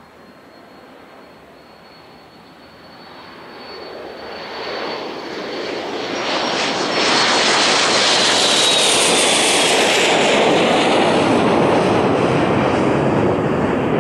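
Bombardier Challenger 350 business jet's twin Honeywell HTF7350 turbofans at takeoff power: a thin high whine that swells from about three seconds in into a loud, steady rush of jet noise as the jet lifts off and climbs over, the whine dropping slightly in pitch as it passes overhead.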